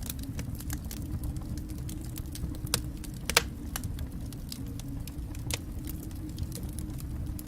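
Wood fire burning in a fireplace, a steady low rumble of flames with irregular crackles and pops, two sharper snaps a little under halfway through.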